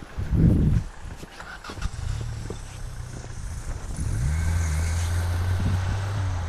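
Off-road 4x4's engine working hard, with revs climbing about four seconds in and then held steady. A brief loud burst comes about half a second in.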